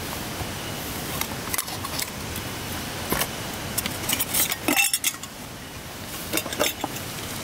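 Light metallic clinks and clatters over a steady hiss of heavy rain, with the busiest cluster of clinks about two-thirds of the way through.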